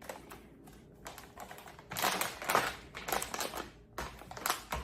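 Sunflower seeds being tipped into a mixing bowl, a rattle of many small ticks in a few short bursts, the loudest about two seconds in and another near the end.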